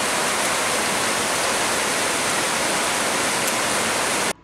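Heavy typhoon rain pouring down as a steady, even hiss, cutting off suddenly near the end.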